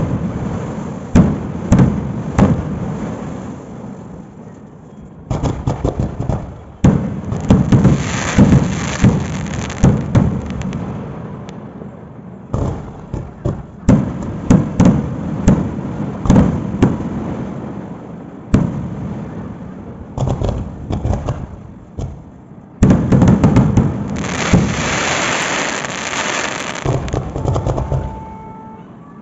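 Fireworks going off in dense volleys of sharp bangs and crackles with a deep rumble, in several bursts that start suddenly and die away between them.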